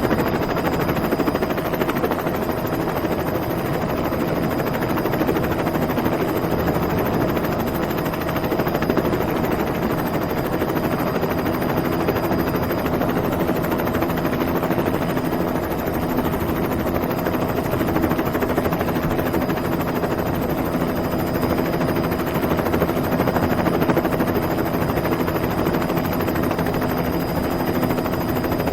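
Helicopter running steadily: the fast, even chop of its rotor blades with a steady whine over it.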